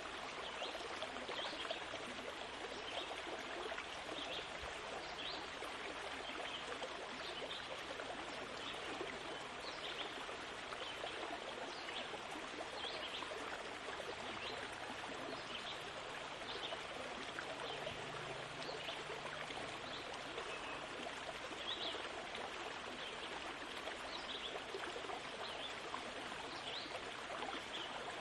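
Steady rushing noise of running water, like a stream, with small flickers of splashing through it.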